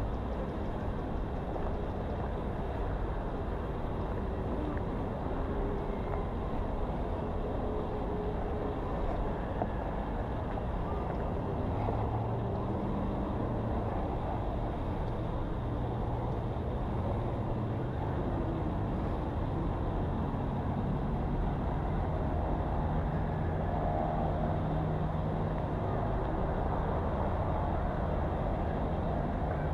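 Steady street traffic noise, with vehicle engines passing; one engine hum swells about twelve seconds in and another past twenty seconds.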